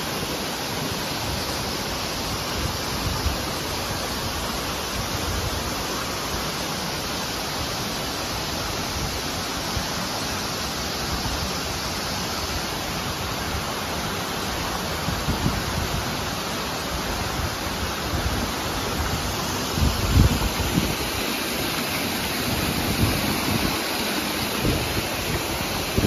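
Steady rush of water flowing over rocks from a stream and waterfall, with occasional low thumps, the strongest about twenty seconds in.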